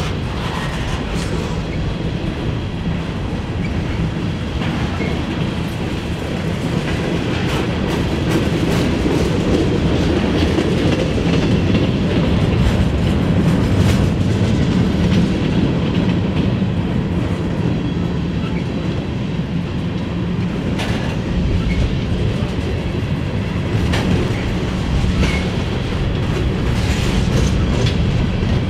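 Freight train cars rolling past: a steady rumble of steel wheels on rail with irregular clicks as the wheels cross rail joints.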